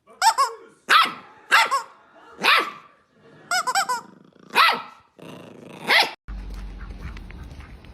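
A dog barking, about seven short sharp barks under a second apart, one of them a quick broken run of yaps near the middle. From about six seconds in, the barking stops and a steady low rumble of background noise takes over.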